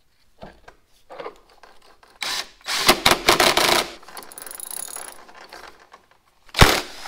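Plastic rear wheel of a Honda HRN216 walk-behind mower being worked back onto its freshly greased axle and drive gear: scattered clicks, then a dense run of clicking and clattering, and one sharp knock near the end.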